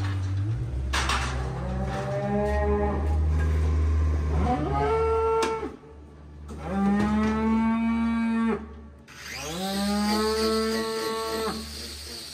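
A cow restrained in a hoof-trimming chute mooing repeatedly: about four long, drawn-out calls, with a low steady hum underneath.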